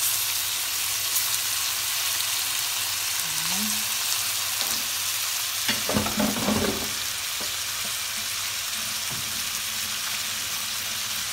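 Raw chicken pieces and diced vegetables sizzling in oil in a stainless steel pan: a steady frying hiss, with a short burst of knocks and rattles about six seconds in.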